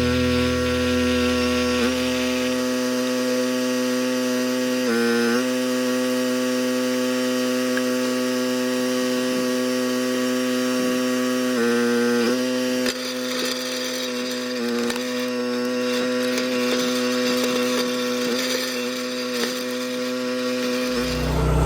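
Wolfe Ridge firewood splitter's engine running steadily while wood is sawn and split. The engine's pitch dips briefly about five and twelve seconds in, as it takes the load.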